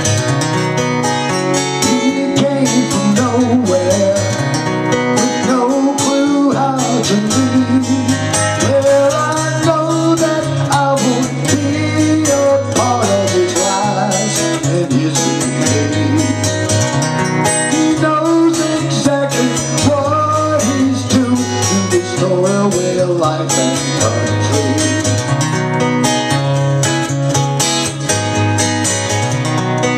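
Fingerpicked acoustic guitar playing a country instrumental break, a steady alternating bass under a melody line that slides between notes.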